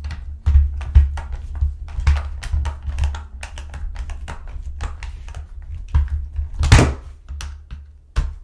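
Small hand screwdriver backing screws out of the plastic housing of a Black & Decker Firestorm cordless drill: a rapid, uneven string of small clicks and ticks with dull knocks from the drill shifting on a rubber mat, and one louder knock about two-thirds of the way through.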